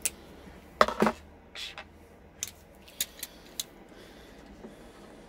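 Metal hand tools clicking and clinking as they are handled: a loud cluster of clicks about a second in, then a few lighter single clicks. The tools are a pop rivet gun with its nosepiece, pliers, and a lazy-tong rivet gun with a scissor linkage.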